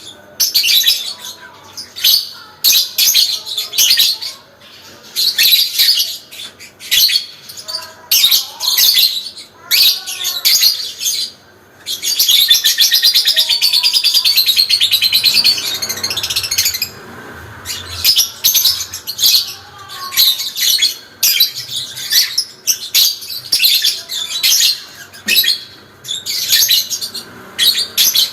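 Parblue lovebird chattering in rapid, high-pitched bursts of about a second each, then one long unbroken ngekek chatter of about five seconds midway, followed by more short bursts.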